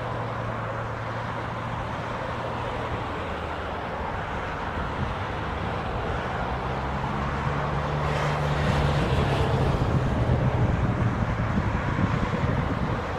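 Airbus A300-600ST Beluga's two turbofan engines droning on final approach, with gear down, growing steadily louder as the aircraft nears.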